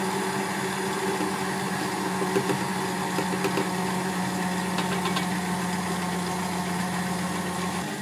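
Kenwood stand mixer motor running at its lowest speed, a steady hum as the dough beater turns in the steel bowl.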